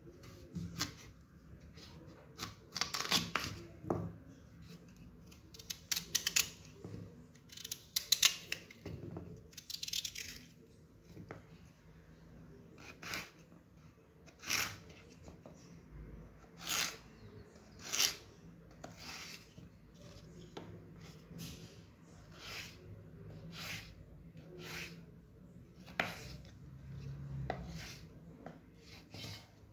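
Kitchen knife slicing a raw peeled potato into slabs and sticks, each cut ending in a crisp knock on the wooden cutting board. The cuts are irregular, some in quick runs and others a second or two apart.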